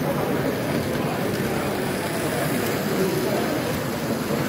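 Steady hubbub of voices in a busy exhibition hall, with a model train running along the layout's track.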